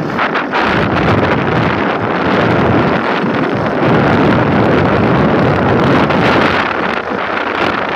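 Loud wind rushing and buffeting over the microphone of a moving vehicle, with vehicle and road noise underneath.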